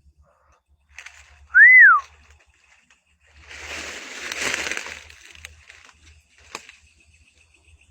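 A single clear whistle, loud and pure, that rises and then falls in pitch about a second and a half in. A couple of seconds later comes a quieter rushing hiss lasting about a second and a half, and near the end a sharp click.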